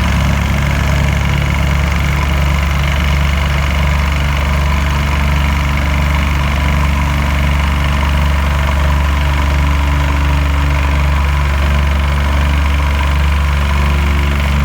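A heavy engine idling steadily, a low even hum that does not change.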